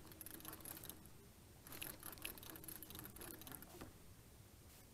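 Fishing reel working faintly as a fish is fought on the line, its gears and drag making light ticking and clicking, busiest in the middle of the stretch.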